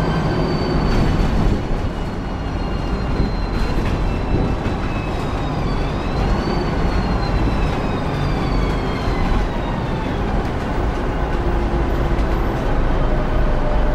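Volvo B10M bus heard from the passenger cabin while driving: the Volvo THD102KF diesel engine's steady low rumble under a high whine from the Voith DIWA automatic gearbox. The whine slowly falls in pitch, rises briefly about halfway through, then keeps falling as the bus slows.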